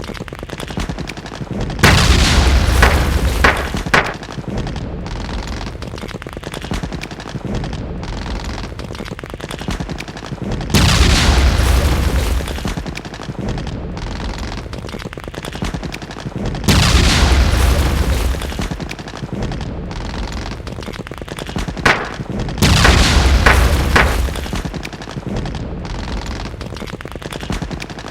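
Bursts of booming, crackling gunfire and explosion sounds, four times, each lasting about two seconds, over a steady rumbling background.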